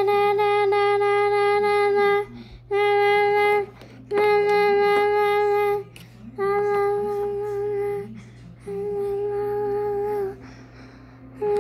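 A child's voice holding one steady high note, over and over: five long notes of one to two seconds with short breaks, and a sixth starting near the end.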